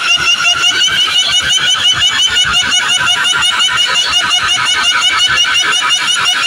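Truck-mounted DJ sound system playing very loud: a high-pitched electronic effect repeating rapidly many times a second over fast low pulses, heavily distorted by the volume.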